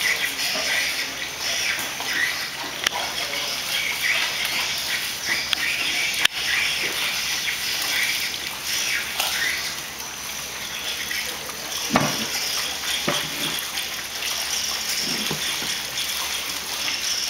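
Water splashing and sloshing as jellyfish are handled and rinsed by hand on a flooded floor, with scattered small clicks and a few knocks, the loudest about twelve seconds in.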